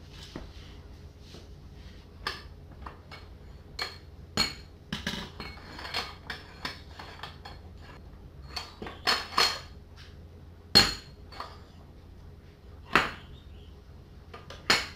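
A metal bench vise being worked to clamp a PVC pipe: irregular metallic clanks and knocks from the vise handle and from the pipe being set against the vise, the loudest about eleven seconds in.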